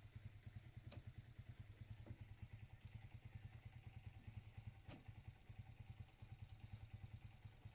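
Backhoe loader's diesel engine idling faintly with a steady, rapid low throb, and a few faint clicks.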